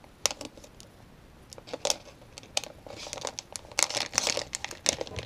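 Plastic bait packaging crinkling and crackling as it is handled and soft-plastic swimbaits are pulled out. The crackles are scattered at first and come thick and fast from about three seconds in.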